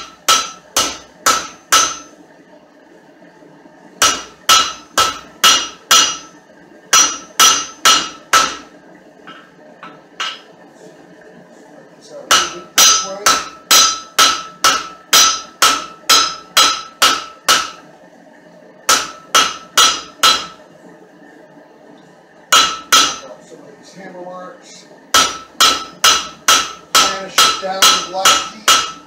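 Blacksmith's hammer striking a hot steel rod on an anvil in runs of blows, about two a second, each blow ringing briefly, with short pauses between runs: squaring up the stock to shape the fork's handle and taper.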